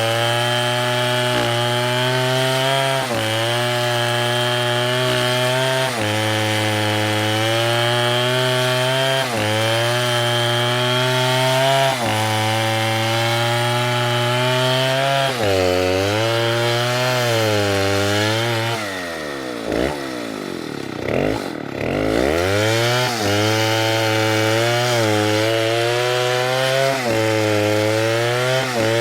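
Large STIHL chainsaw running at full throttle through wood, its pitch dipping slightly every second or two under load. About two-thirds of the way through it drops to idle for a few seconds with a couple of quick blips of the throttle, then revs back up and carries on cutting.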